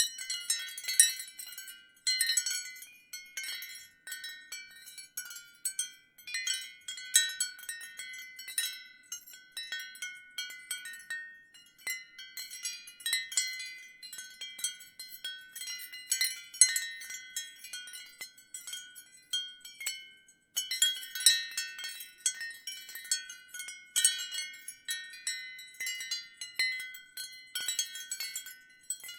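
Ceramic wind chimes clinking and ringing in the wind: irregular clusters of high, bright tones overlapping each other, with a brief lull about twelve seconds in and another about twenty seconds in.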